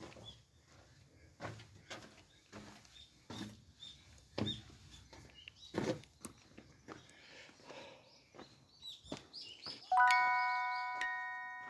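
Footsteps on a trail with faint bird chirps, then about ten seconds in a bell-like chime of several ringing tones starts, struck again about a second later.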